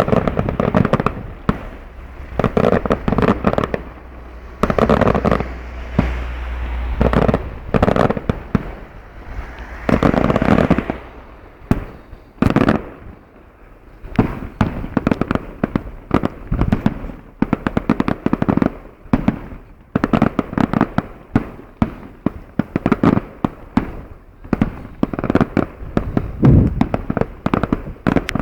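Fireworks going off: rapid volleys of bangs in dense clusters, one after another, with a brief lull about halfway.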